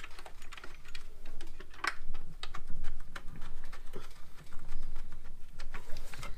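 Light, irregular metallic clicks and taps of throttle body bolts and their captive washers being threaded in by hand, with one sharper click about two seconds in.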